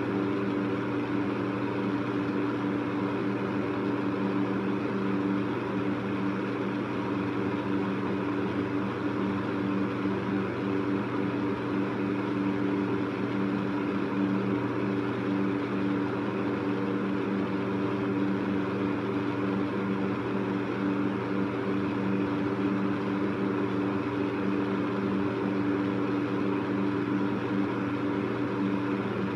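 Electric fan running steadily: an even rush of moving air over a low motor hum that does not change.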